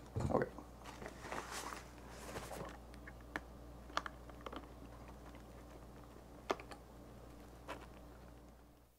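Hands working a padded fabric shuttle bag and its power cables: a bump at the start, a couple of seconds of rustling, then a handful of scattered light clicks as the cable connectors are squeezed and pushed onto their terminals.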